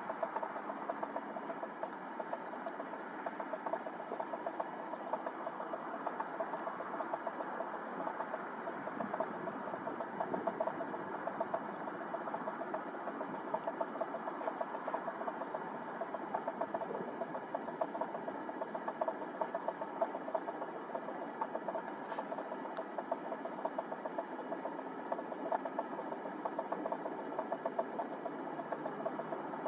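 Aircraft engine running steadily with a fast, even flutter.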